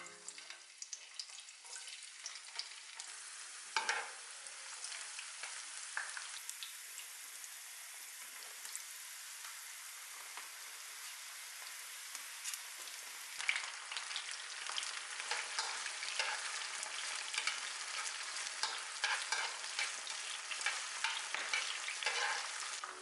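Sliced garlic and dried chillies sizzling in hot olive oil, a steady crackling fizz with a few sharper pops. About halfway through, sliced mushrooms go into the oil and the sizzle grows louder and denser, with more crackles.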